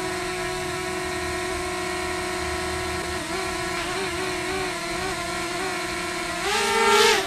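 DJI Mini 2 SE drone's propellers whining as it hovers, holding a steady pitch that wavers briefly a few times as it adjusts, then rising in pitch and getting louder near the end.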